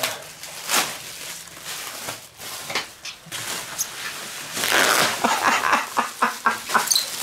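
Plastic bubble wrap crinkling and rustling as it is handled and pulled off a thick wooden cutting board, in scattered rustles that turn denser and louder a few seconds in.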